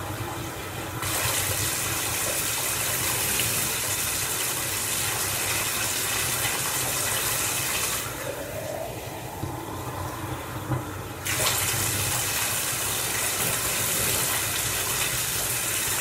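Bath water running steadily into a tub, a continuous splashing hiss. It thins out for about three seconds past the middle, then comes back full.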